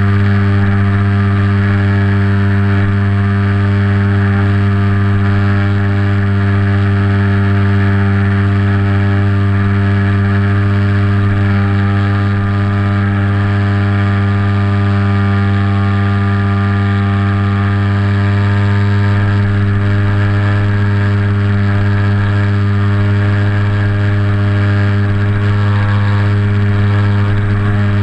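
Motor and propeller of a radio-controlled flying wing running at a steady speed: a loud, even drone, heard close up from a camera mounted on the wing.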